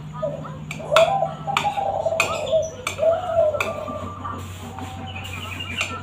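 Young caged derkuku (spotted dove) cooing in a run of low calls during the first half, with a few sharp clicks and light chirping from other birds, over a faint steady hum.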